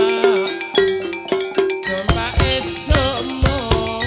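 Live Javanese gamelan-style music: mallet-struck metallophone notes ringing over a wavering melody line, with drum strokes coming in about halfway through.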